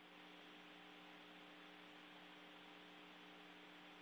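Near silence: a faint, steady electrical hum with light hiss on an open radio channel between calls.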